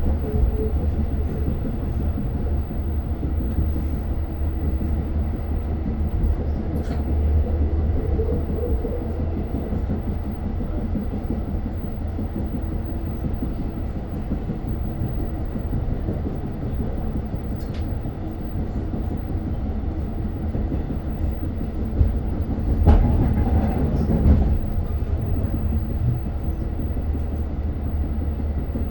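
Steady running rumble of a Long Island Rail Road diesel train in motion, with a few short knocks from the track and a louder stretch about 23 seconds in.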